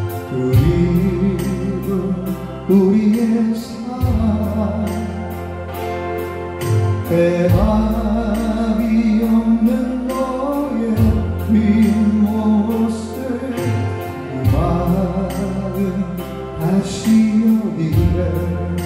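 A man singing a slow Korean ballad into a microphone, with acoustic guitar and a deep bass accompaniment whose long held notes change every few seconds.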